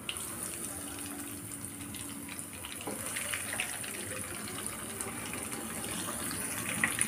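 Breadcrumb-coated potato kola urundai balls sizzling and crackling as they deep-fry in hot oil. The sizzle gets louder and busier about three seconds in, as more balls are dropped into the oil.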